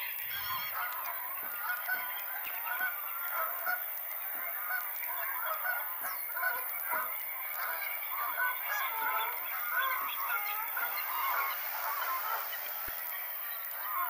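A flock of Canada geese honking, many calls overlapping without a break, as the birds fly in and land on the water.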